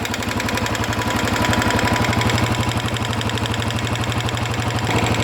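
Royal Enfield Electra 350 single-cylinder four-stroke engine idling with a steady, even beat, getting a little louder about a second in. The bike is running after work on its tapping noise, which the mechanic says has stopped.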